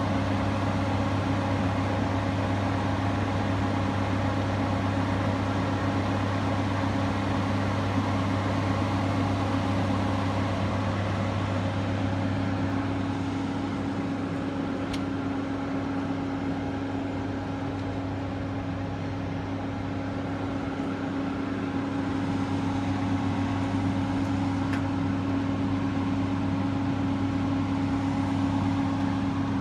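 Boeing 737 airliner's jet engines running steadily at low power, a constant hum with a few steady tones above it and no build-up of thrust.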